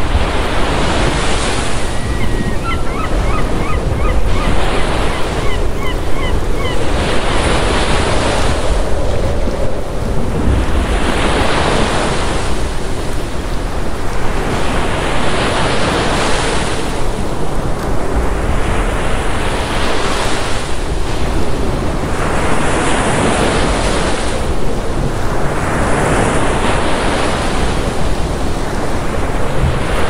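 Ocean surf breaking in steady succession, a new wave rushing in about every three and a half to four seconds.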